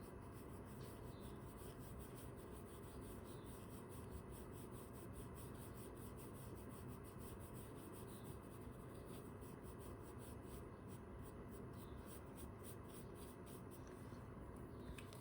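Faint soft rubbing of repeated strokes on drawing paper as charcoal is worked into a sketch.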